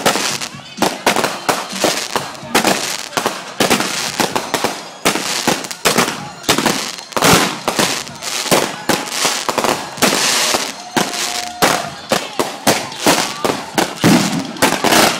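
Fireworks going off in rapid, irregular succession, many sharp bangs a second with crackling between them.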